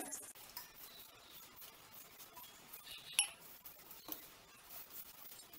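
Faint sound of a hand mixing flour and milk in a stainless steel bowl. A light metallic clink comes about three seconds in, steel on steel, as the milk tumbler touches the bowl.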